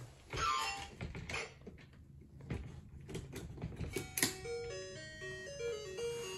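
A battery-powered musical toy playing a simple electronic tune of plain beeping notes, which starts about four seconds in. Before it come a quick falling run of chime-like notes and a few handling clicks.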